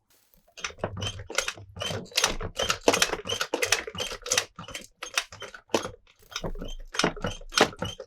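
Hard plastic toy parts being handled, a fast, irregular run of clicks and clacks.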